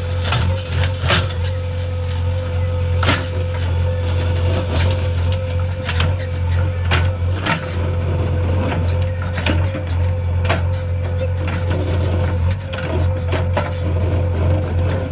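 JCB 3DX backhoe loader's diesel engine running steadily under load with a steady higher hum, while irregular sharp cracks and clanks come from the machine working the ground.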